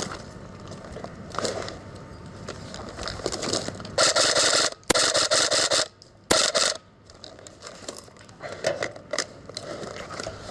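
Airsoft electric rifle firing three short full-auto bursts about four to seven seconds in, each a rapid run of mechanical clacks, with scattered clicks and rustling around them.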